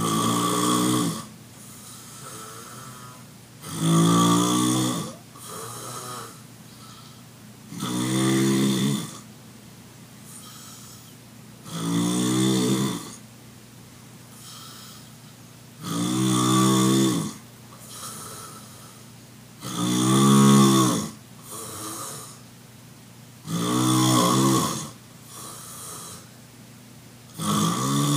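A sleeping man snoring loudly and regularly: a long rattling snore about every four seconds, each followed by a softer, breathy exhale.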